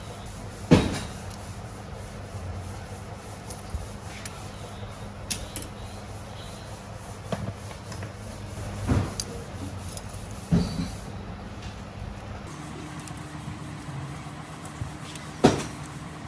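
A few short, sharp knocks and clicks, with the loudest near the start and near the end, as a diesel engine piston and a sprung band-type piston ring compressor are handled. Under them runs a steady low workshop hum.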